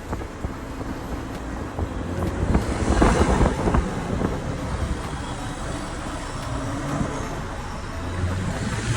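BMW M340i's turbocharged 3.0-litre inline-six, breathing through an aftermarket MST intake that makes the turbo audible, building to a loud rushing surge about three seconds in, then easing to a steadier level.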